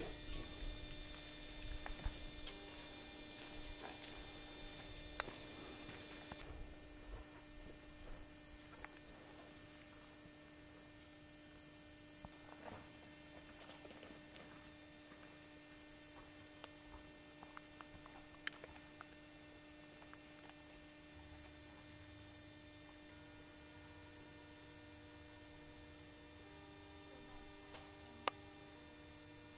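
Near silence with a faint steady hum and a few faint, scattered clicks.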